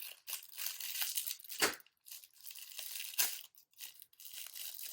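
Plastic packaging crinkling and tearing as a fidget toy is unwrapped, with two louder sharp crackles about one and a half and three seconds in.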